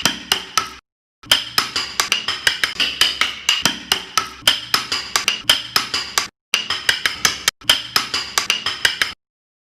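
A mallet tapping a carving chisel into wood in quick repeated strikes, about three to four a second, each with a short metallic ring. The tapping cuts off abruptly a few times and stops shortly before the end.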